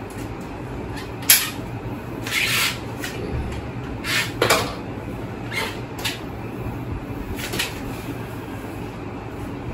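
Handling noises from a Crossmac Haagen 90 folding bike as its seatpost is slid up and clamped: a sharp clack about a second in, then a few scraping clicks and knocks of metal parts, over a steady low hum.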